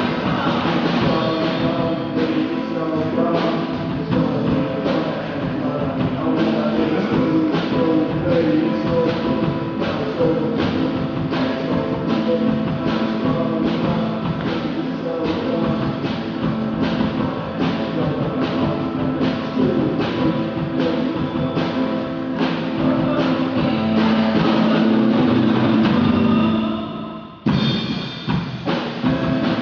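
Loud music with singing over a steady drum beat, heard through a phone's microphone. The music drops away briefly near the end, then starts again.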